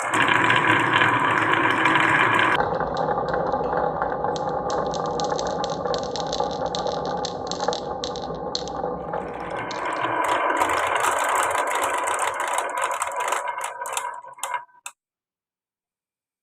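Many marbles rolling and clattering down wooden marble-run tracks, a dense continuous rattle with quick clicks that shifts in tone as the marbles move to different track sections, then stops suddenly about 15 seconds in.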